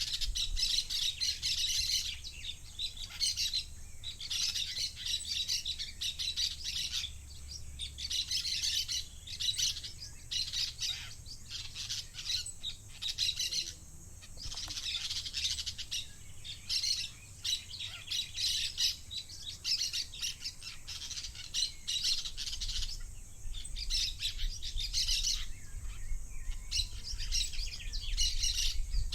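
Parakeet chattering and warbling in a fast, busy stream of high chirps, in runs of a second or two broken by brief pauses.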